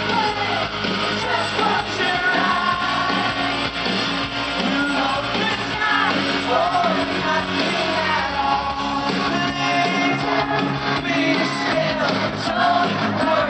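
A rock band playing live, with a lead vocalist singing over guitars and drums.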